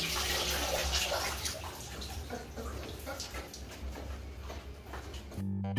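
Water streaming off a soaked Labrador puppy as it is lifted out of a plastic basin, splashing and dripping back into the bathwater. The splashing is loudest at first and then thins to scattered drips.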